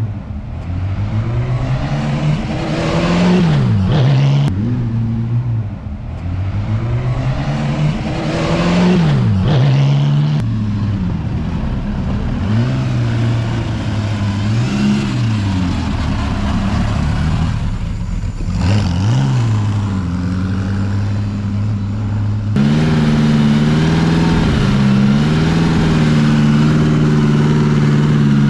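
Bugatti Type 35B replica's straight-eight racing engine, revs climbing and falling repeatedly as it is driven and throttled. In the last few seconds it runs at a steadier, louder idle with small blips of the throttle.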